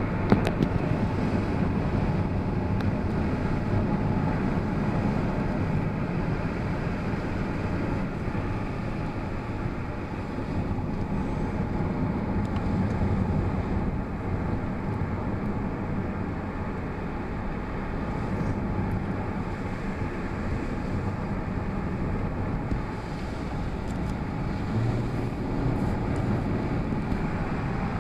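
Steady car road noise heard from inside the cabin while driving: a constant rumble of engine and tyres on the pavement, with a few light clicks right at the start.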